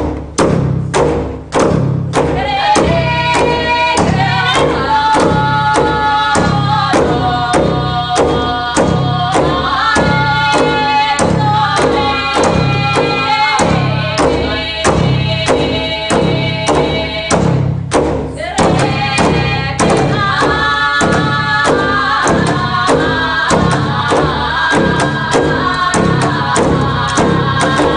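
Music: a steady, regular percussive beat, joined about two seconds in by sustained, layered pitched chords, possibly voices, that shift in pitch every second or two; the chords drop out briefly a little past the middle while the beat goes on, then return.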